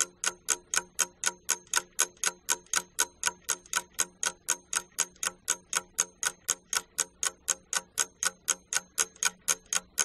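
Ticking-clock sound effect, about four even, sharp ticks a second, marking thinking time for a question.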